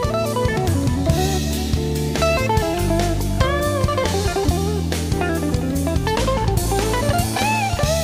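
Background music: an electric guitar lead with bending notes over bass and drums.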